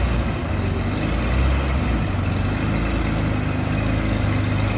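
1965 Mercedes-Benz 220 SE's fuel-injected straight-six running at low speed as the car rolls slowly forward, a steady low engine hum.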